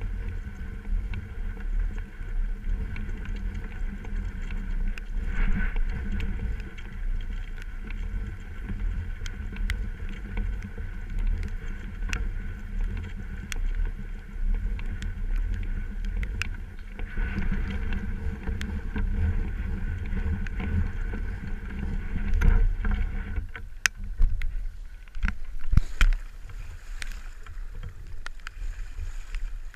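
Steady outdoor water noise with a low, gusty rumble, and a few sharp knocks near the end.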